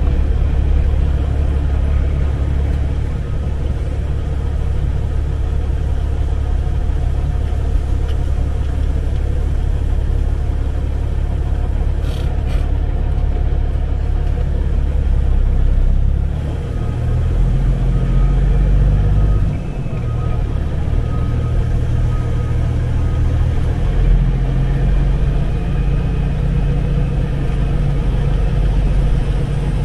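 Semi truck's diesel engine running with a steady low rumble, its note changing about halfway through.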